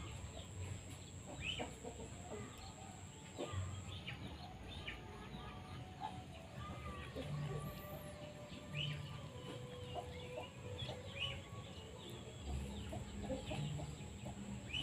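Faint bird calls: short chirping notes scattered through, with a few longer held notes.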